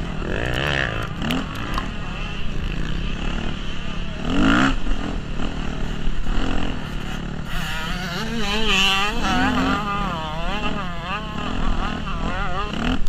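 Yamaha YZ250F motocross bike's four-stroke single-cylinder engine, its revs rising and falling as the throttle is worked, swinging up and down several times a second in the second half.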